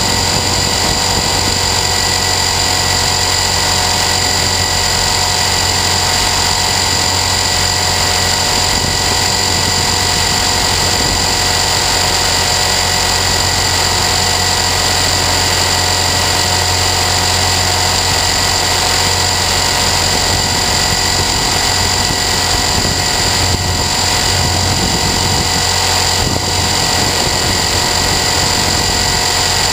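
Align T-Rex 450 Sport electric RC helicopter heard from its onboard camera: a steady, loud whine of the motor, drivetrain and spinning rotor, holding one constant pitch with a dense rushing noise under it.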